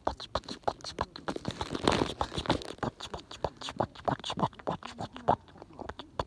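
Bonfire crackling: irregular, closely spaced pops and snaps of burning wood.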